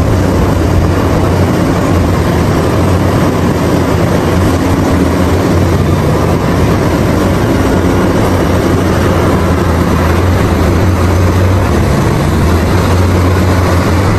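Caterpillar 6015B hydraulic mining excavator working under load: its diesel engine runs steadily, a constant low drone under a dense mechanical noise, with no separate knocks or impacts.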